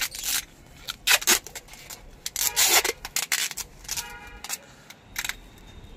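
PVC insulation tape being pulled off its roll and wound around a bundle of two foam-insulated copper air-conditioner pipes and a cable, in several short rasping pulls.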